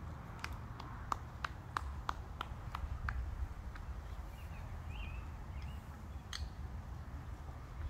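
A steady low rumble with about ten evenly spaced sharp clicks, about three a second, over the first three seconds, then a few faint bird chirps and one more click in the middle.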